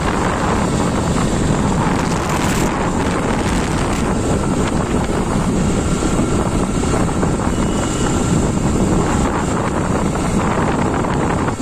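Strong wind buffeting the microphone on a moving motorbike: a loud, steady rushing noise, with the bike's running and road noise beneath it.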